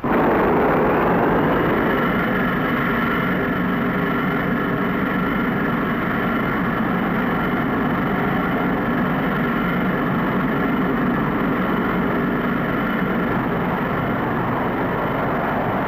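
Jet combustion test rig firing on a test bed: a loud, steady roar with a high whine, starting suddenly; the whine rises over the first second or two, then holds steady.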